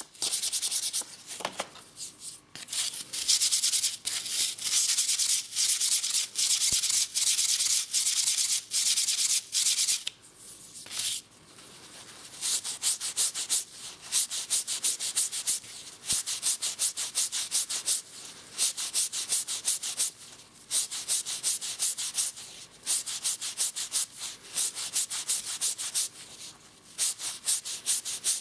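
Hand-sanding a turned elm egg: quick back-and-forth rubbing strokes of sandpaper, then a non-woven abrasive pad wrapped around the egg, against the wood. Each stroke gives a scratchy hiss, about four strokes a second, with a short pause about ten seconds in.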